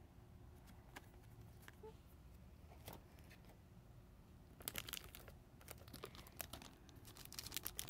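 Plastic packaging crinkling as it is handled, in short crackly bursts from about four and a half seconds in and again near the end, with a few faint ticks before.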